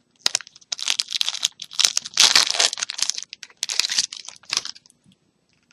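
A disposable syringe's sealed wrapper being pulled open by hand: a run of crinkling and tearing for about four and a half seconds, loudest about two seconds in.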